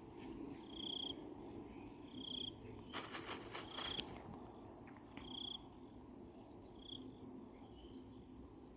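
Steady high-pitched insect trill in the open air, with a short high chirp repeating about once a second over a low, even rushing background. A few faint clicks come about three seconds in.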